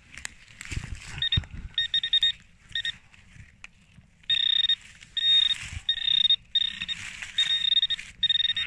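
Handheld metal-detecting pinpointer probing loose soil in a dug hole and sounding its alert: a few quick stuttering beeps, then from about halfway through, longer high beeps repeating in a steady pattern, the sign of metal close to its tip. Soft scraping and knocks of the probe against the earth sit under the beeps.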